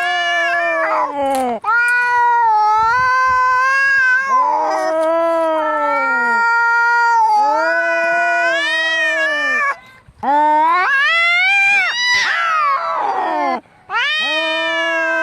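Angry cats caterwauling as in a cat fight: long, drawn-out yowls that waver up and down in pitch, one after another with only brief breaks. About twelve seconds in, a harsher cry slides steeply downward.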